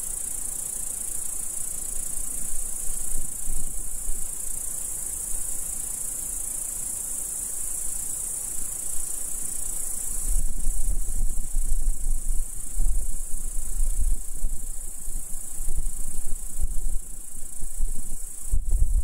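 Steady high-pitched shrilling of meadow insects. About halfway through, a low, uneven rumble joins in and grows louder.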